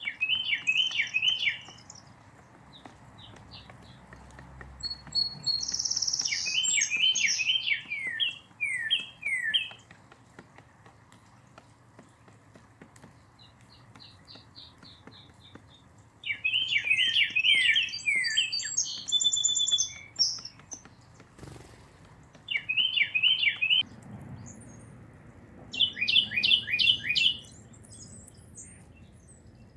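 Songbirds singing: five or so bursts of quick, repeated down-slurred notes, each lasting a second or two, with fainter high chirps between them.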